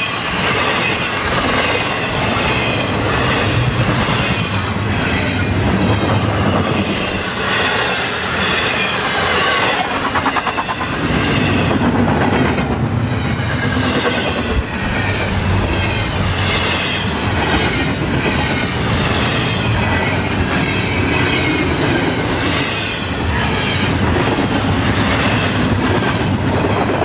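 Double-stack intermodal container train of well cars passing at speed: a steady rumble of steel wheels on rail, with a repeating clickety-clack as the wheel trucks cross rail joints.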